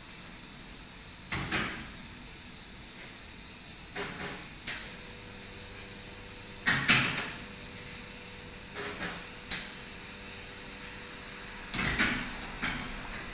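Sharp knocks and clatters of espresso-bar equipment being handled at a commercial espresso machine, coming in short clusters every couple of seconds over a steady hiss. A faint steady hum comes in about five seconds in.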